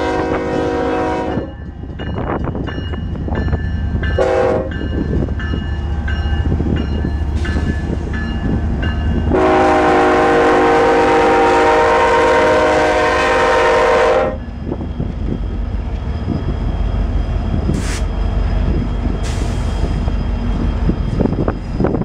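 Union Pacific locomotive air horn sounding the grade-crossing signal: a long blast ending about a second and a half in, a short toot about four seconds in, then a long blast held for about five seconds. Under it run the diesel engines of the passing lead units, a GE C45ACCTE and two EMD SD70Ms, and after the horn the double-stack cars roll past with wheel noise and a few sharp knocks.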